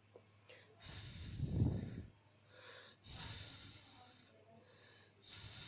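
Three soft, breathy puffs of air close to the microphone, each about a second long, like a person exhaling, with a couple of faint clicks just before the first.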